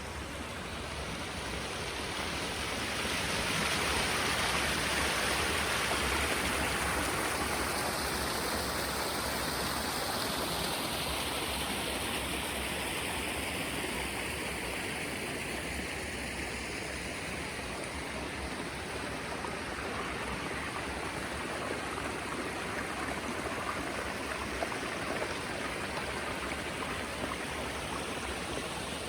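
Stream water rushing steadily, swelling louder about four seconds in and then easing a little.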